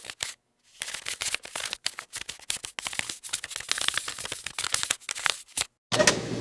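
Paper banknotes being flicked through in quick succession, as in counting a stack of cash: a rapid run of crisp, papery snaps. Near the end a different, fuller clattering sound starts.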